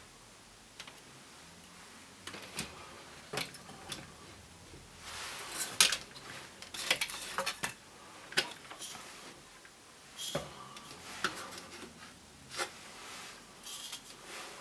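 Irregular clicks, clinks and light rubbing of small hard objects being handled, with a sharp click about six seconds in the loudest.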